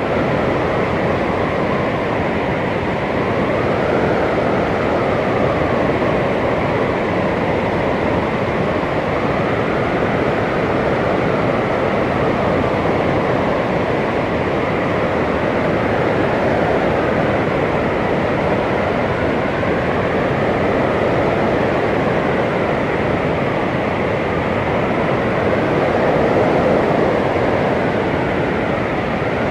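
Blizzard wind blowing in a dense, steady rush, with a faint whistle that rises and falls every few seconds.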